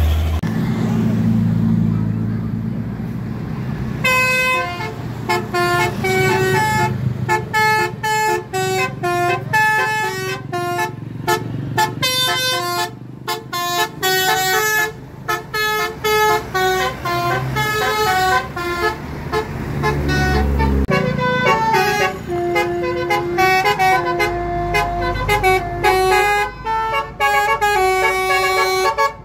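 Bus telolet horn, a multi-tone musical horn, playing a fast tune of short stepped notes over the low rumble of a bus engine. The horn starts about four seconds in and keeps playing, note after note, to the end.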